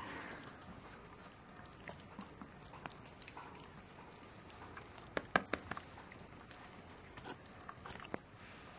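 Faint scattered clicks and taps as a chihuahua moves about close by, with a louder cluster of taps about five seconds in.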